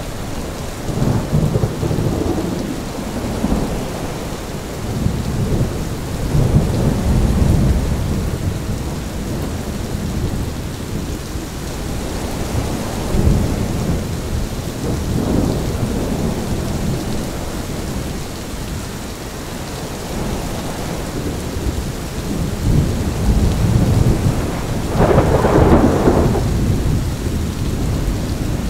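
Thunderstorm: steady rain with gusting wind and low rolling rumbles of thunder that swell up several times, the loudest near the end.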